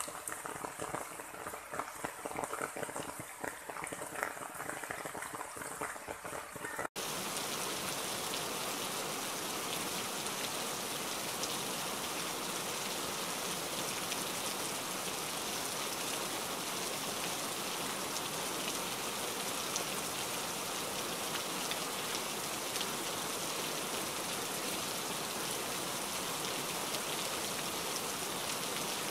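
Steady rain, an even hiss of falling drops, starting abruptly about seven seconds in. Before it there is quieter outdoor sound with a few faint knocks.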